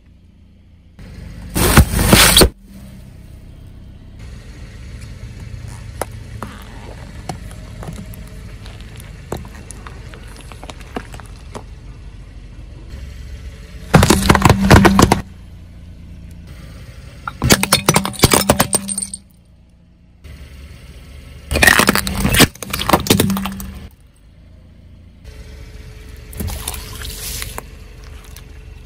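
A car tyre rolling slowly over objects laid on asphalt and crushing them one after another: five loud bursts of cracking and crunching a few seconds apart, one of them round eggplants splitting about halfway through, over a low steady rumble of the car.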